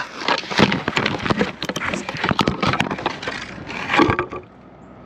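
The electric rollerblade suit crashing and tumbling on asphalt: a rapid, loud clatter of knocks and cracks from its wooden and plastic pieces, dying down about four seconds in. This is the crash in which the suit's arm piece snapped in half.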